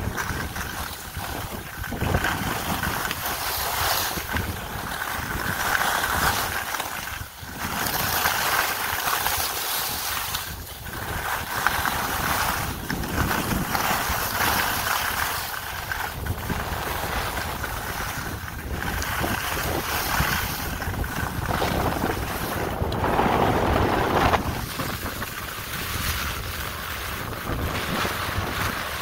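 Wind rushing over the microphone of a camera carried by a skier heading downhill, mixed with the hiss and scrape of skis carving across firm snow. The rush swells and dips every two to three seconds as the skier turns.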